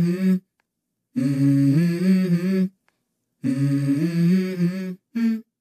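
A cappella vocal humming in a low voice: three long held phrases of about a second and a half, each stepping up to a higher note partway through, separated by short silences, with a brief fourth note near the end.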